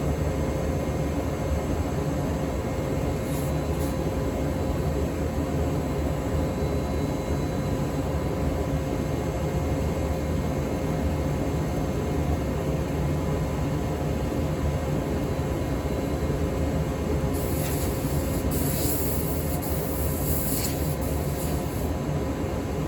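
CNC router running steadily: a constant hum with a steady whine. About seventeen seconds in come several seconds of sharper high-pitched hiss, as of the bit cutting into the pickguard sheet.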